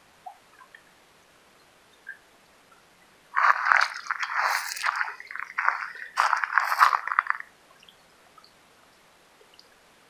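Water from a flowing artesian well pipe gurgling and splashing in a run of loud, uneven bursts that starts about a third of the way in and stops after about four seconds.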